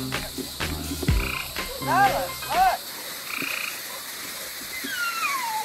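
Frogs croaking in a low, pulsing chorus, with two loud short calls near the middle; the chorus cuts off abruptly about three seconds in. A ground fountain firework hisses through the second half.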